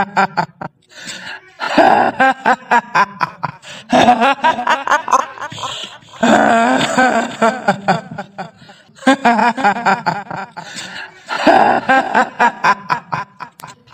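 A woman's shrill, cackling ghost laugh, the kuntilanak's 'hihihi', in about five rapid pulsing bursts.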